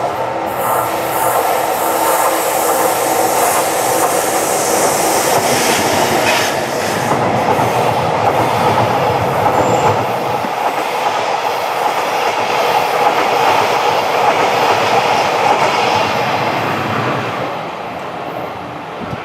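A passenger train hauled by an EF81 electric locomotive passing close by, its wheels running loudly over the rails. The sound dies away near the end as the train moves off.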